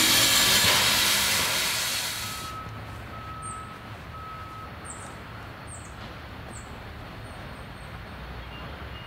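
2-8-2 Mikado steam locomotive hissing loudly with escaping steam, fading over about two seconds. The hiss gives way to a quiet low rumble with a few short high chirps and beeps.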